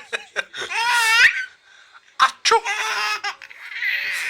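A baby laughing hard: a high-pitched squealing laugh about a second in, followed by repeated bursts of belly laughter.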